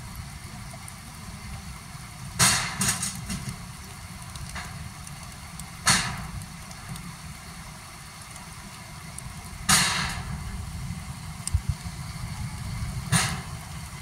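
Rain ambience with a steady low rumble, broken by four sharp cracks about three and a half seconds apart, each dying away quickly.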